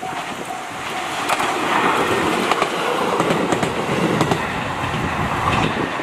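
Level-crossing warning bell ringing for about the first second, then a JR Obama Line train running past, its wheels clacking over the rail joints, the noise building over the first couple of seconds and staying loud.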